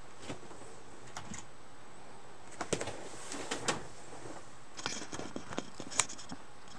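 Scattered sharp clicks and light knocks of objects handled at a desk, in a small room, the loudest about six seconds in.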